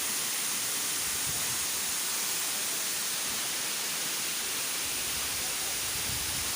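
Waterfall: a steady rushing hiss of falling water, with soft low rumbles about a second in and again near the end.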